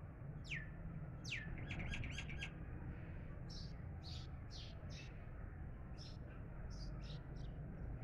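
Small songbirds chirping over a steady low rumble. Two sharp falling calls come near the start, then a quick run of chirps about two seconds in, then scattered single calls.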